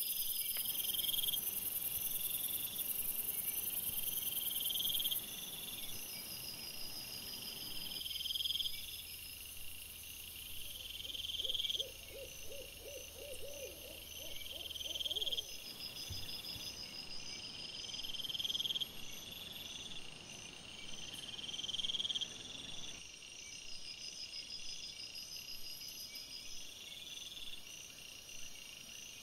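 Night insects chirping in a steady repeating pattern, swelling every two to three seconds. About halfway through, a short run of quick rising calls from another animal joins in for a few seconds.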